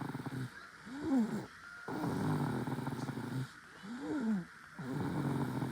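A baby snoring in a steady cycle: long rough, buzzing snore breaths, each followed by a short whistling breath that rises and falls in pitch. The cycle repeats about every three and a half seconds.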